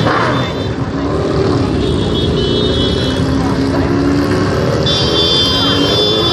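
Motorcycle engines running and revving, a loud low rumble whose note wavers up and down. A high steady tone sounds twice over it, about two seconds in and again from about five seconds in.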